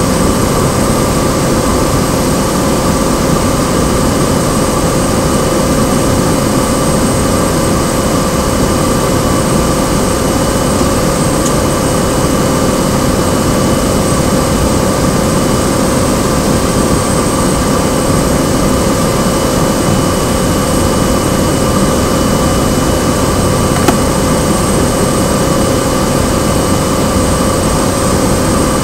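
Cessna 208B Grand Caravan's Pratt & Whitney PT6A turboprop engine and propeller running at steady power on approach, heard loud from inside the cabin: an even rushing noise with several steady whining tones over it.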